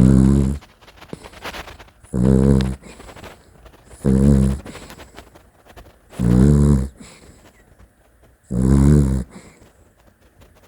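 Dachshund snoring in its sleep: five loud, rattling snores, one about every two seconds, with softer breathing between them.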